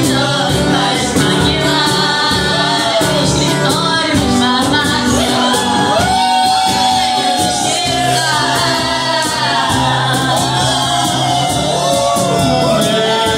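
Live band music with a singer, over a steady drum beat and sustained bass notes.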